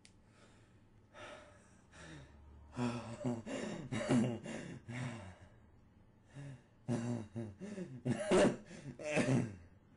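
A person's voice making wordless vocal sounds in a run of short pitched bursts that bend up and down, starting about three seconds in and loudest near the end.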